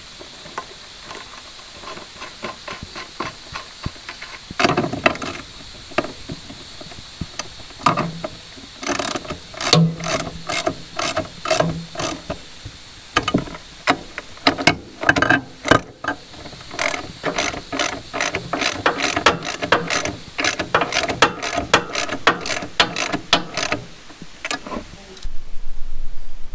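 Socket ratchet wrench clicking in quick runs with short pauses, tightening the bolts of a battery box being mounted on a sawmill.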